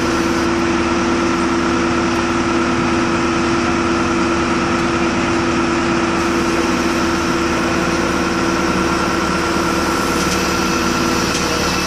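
Engine of the crane or hoist holding the stone sculpture in its lifting sling, running steadily with an even, unchanging hum.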